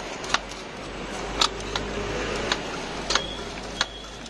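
About six light, sharp clicks and clinks as a scooter's kick-start cover and its parts are handled, over a steady background noise.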